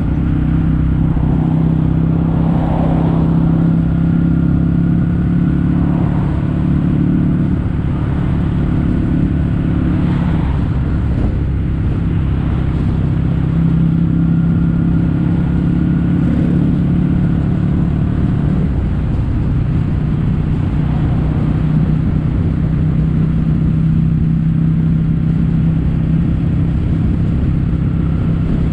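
Kawasaki W800's air-cooled parallel-twin engine running through Yamato stainless-steel Caberton-style silencers, the stock-baffle sound of the aftermarket exhaust while riding. It holds fairly steady revs with small rises and falls.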